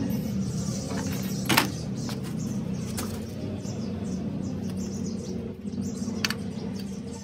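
A steady low machine hum with three sharp knocks, the loudest about one and a half seconds in.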